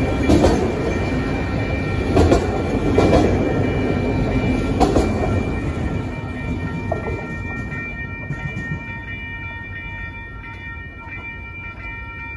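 Autorack freight cars rolling past, wheels clacking over the rail joints with a loud rumble, which fades away after the last car goes by about six seconds in. A grade-crossing bell rings steadily throughout.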